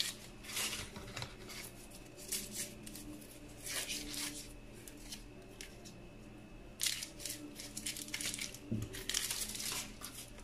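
Thin foil wrappers being peeled off processed cheese portions and crumpled by gloved hands: crinkling and tearing in several short spells with quieter gaps between.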